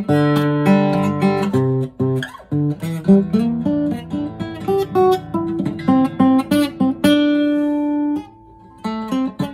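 Acoustic guitar played solo, a run of picked notes and chords. Near the end one note rings out, there is a brief pause, and then the playing starts again.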